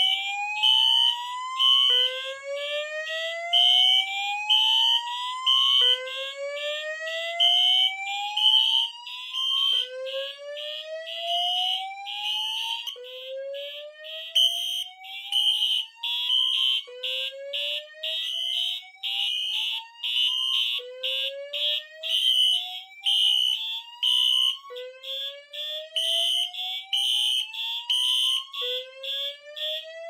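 Fire alarm notification appliances sounding together in alarm, set off by an activated heat detector: a slow whoop that rises in pitch and starts over about every four seconds, under a rapidly pulsing high-pitched horn tone.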